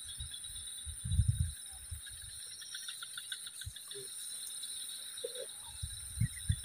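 Insects buzzing and chirping steadily in the background, a constant high drone with rapid chirps beneath it. Brief low thumps come about a second in and again near the end.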